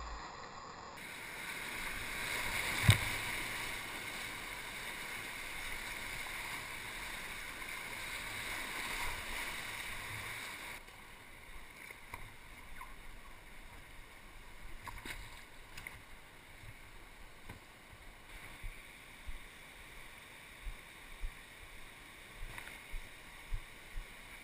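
Steady rush of whitewater heard from a kayak, with one sharp knock about three seconds in. About eleven seconds in it drops suddenly to the quieter wash of calm water, with short soft knocks about once a second near the end.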